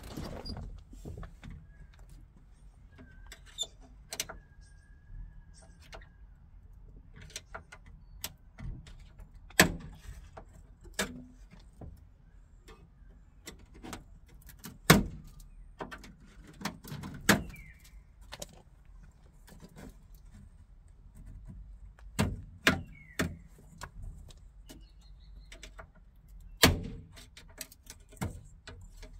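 Irregular sharp clicks and knocks with faint scraping as the old outer window frame strip is worked loose and pulled off the door glass of a Fiat 126 BIS. There are about half a dozen loud clicks among many small ones.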